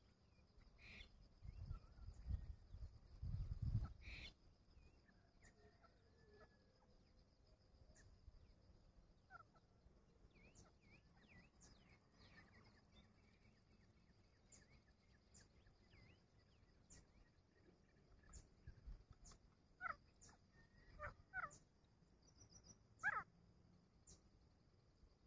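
Near silence broken by faint, scattered short bird calls, with a few sharper chirps near the end. A low rumble in the first few seconds.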